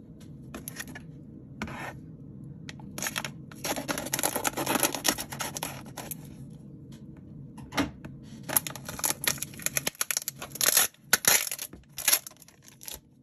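A knife cutting through the packing tape and plastic wrap on a cardboard mailer, in irregular scraping strokes, with the wrapping torn open by hand. There is a dense run of cuts a few seconds in and louder separate tearing strokes in the second half.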